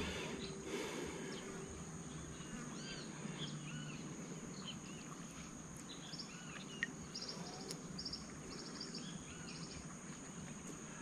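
Outdoor ambience of many birds chirping over a steady high-pitched insect drone, with a few short rapid trills in the second half and one sharp click just past the middle.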